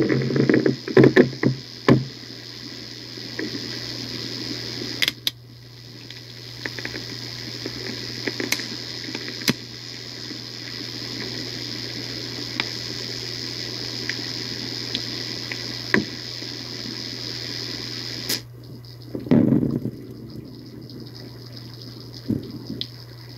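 Playback of a recording from a microphone lowered into a 58 m borehole: a steady rushing noise with a constant low hum and a faint high whine, broken by scattered clicks and knocks. The high hiss drops away about eighteen seconds in. The recordist takes these sounds for underground tunnel digging.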